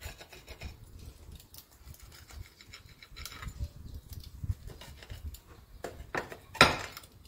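Knife cutting through grilled sandwiches on a plate: a series of short scraping strokes through the toasted bread, with one louder, longer stroke near the end.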